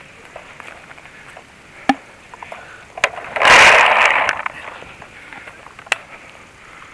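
Handling noise close to the microphone: a few sharp snaps and clicks, then about a second of loud rustling scrape about three and a half seconds in as the player's gloved hand, sleeve and gun brush past the camera.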